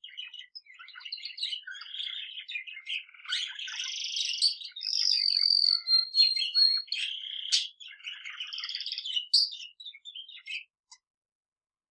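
A budgerigar's chattering warble and a male canary's song mixed together, with a long, high, slightly falling whistled note about five seconds in. The singing stops shortly before the end.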